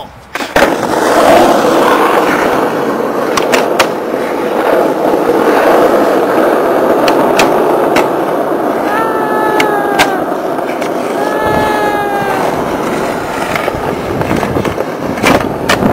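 Skateboard wheels rolling over rough asphalt, a steady rumble, with a few sharp clacks along the way.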